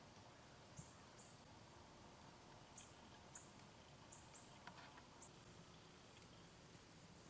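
Near silence of the outdoors, with faint, short, high-pitched chirps about once a second or so and a soft click about a second in.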